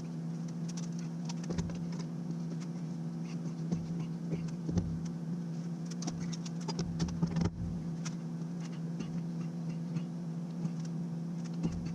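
Irregular light clicks and knocks of parallel jaw clamps being set and tightened on a glued-up board, over a steady low hum.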